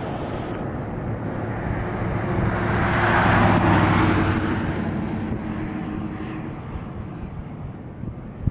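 Military aircraft passing overhead: its engine noise swells to a peak about three and a half seconds in, then slowly fades away.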